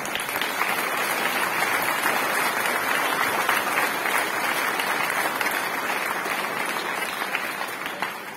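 Audience applauding steadily, then tapering off over the last couple of seconds.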